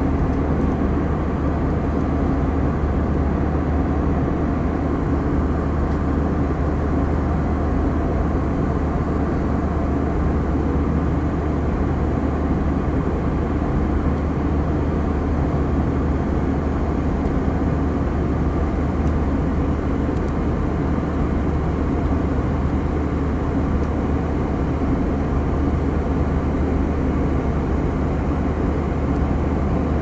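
Steady drone of an airliner in flight as heard inside the passenger cabin: engine and airflow noise, low and even, with no change throughout.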